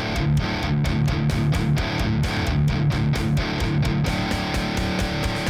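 Background music: rock with electric guitar and a steady drum beat.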